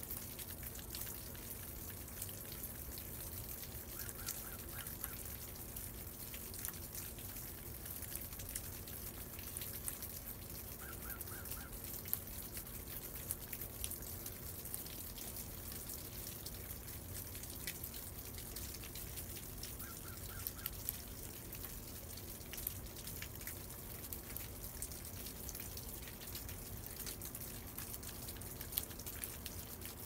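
Meltwater dripping from icicles and snow on a stone building, irregular drips over a steady low hum, a few drips louder than the rest. A short run of four quick high notes sounds three times.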